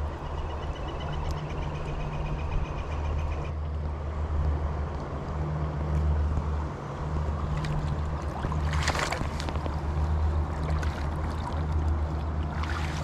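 Steady low rumble of a rushing stream, with water splashing about nine seconds in and again at the end as a hooked brook trout thrashes at the surface being landed.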